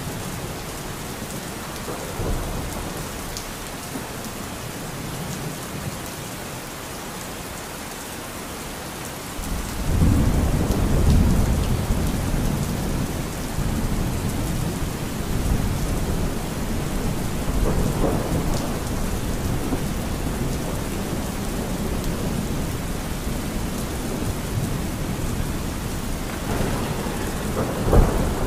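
Steady rain with thunder; a low rumble of thunder comes up suddenly about a third of the way in and swells again twice later.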